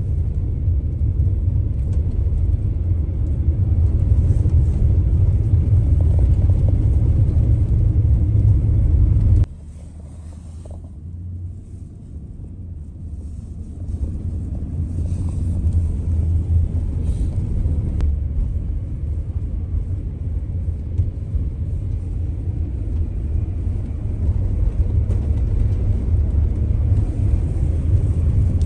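Low, steady rumble of a vehicle driving: engine and road noise. It drops away suddenly about nine seconds in, then builds back up over the next few seconds.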